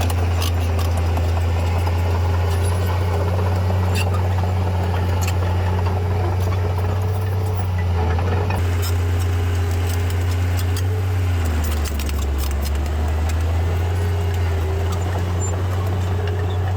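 Diesel engine of heavy earthmoving machinery running steadily, its note dropping lower about two-thirds of the way through, with scattered sharp clanks and knocks.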